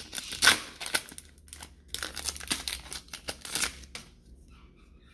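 Foil wrapper of a Pokémon XY Breakthrough booster pack being torn open and crinkled, a run of sharp crackles and rustles that dies down about four seconds in.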